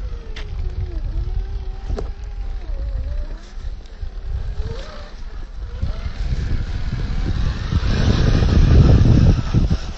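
Electric motor whine of a 1/10-scale RC rock crawler (Reedy 550 brushed motor), rising and falling in pitch with the throttle, over a low rumble that grows loudest about eight seconds in.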